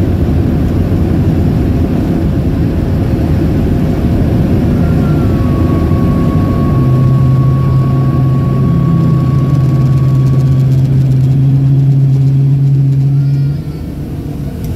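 Cabin noise of a Boeing 737-800 rolling out on the runway after landing, spoilers up: a loud, steady rumble of the CFM56 engines and the wheels on the runway. A steady low hum joins about seven seconds in and stops near the end, where the overall noise drops off suddenly as the jet slows.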